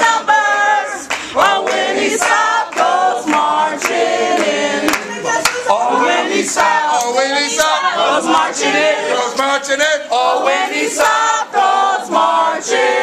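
A group of protesters singing together in chorus, with sharp claps at an even pace.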